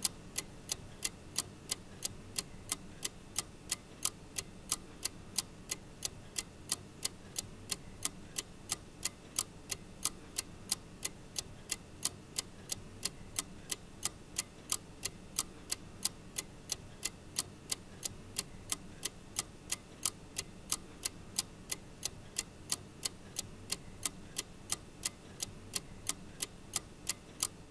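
Ticking clock sound effect: sharp, evenly spaced ticks, a few a second, over a low steady hum, stopping abruptly at the end.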